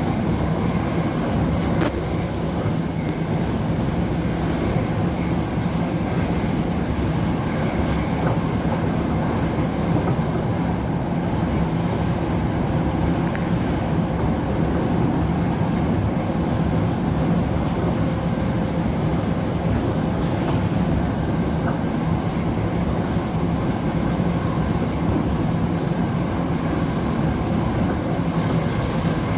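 Siemens Class 707 Desiro City electric multiple unit running at speed, heard from inside the passenger saloon: a steady rumble of wheels on the track with a constant hum underneath.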